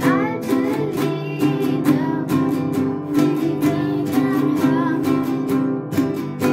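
Nylon-string classical guitar strummed in steady chords, with a voice singing a melody over it.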